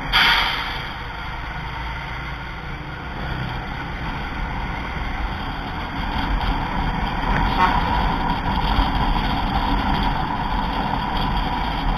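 Intercity coach under way: steady engine and road noise heard from the front of the cabin, with a brief sharp loud sound at the very start and the noise getting louder in the second half.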